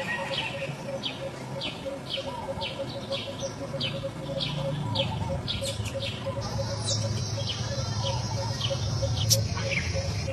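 Baby macaque crying with a run of short, shrill, falling squeals, about two or three a second.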